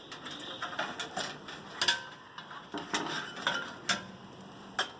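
Light metallic clicks and knocks of computer hardware being handled against a metal PC case, a few separate sharp taps with gaps between.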